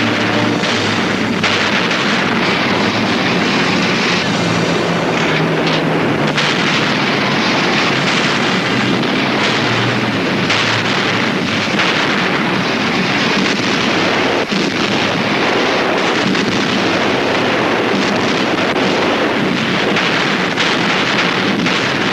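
Heavy naval gunfire, shot after shot at irregular intervals, mixed with explosions over a steady rushing noise.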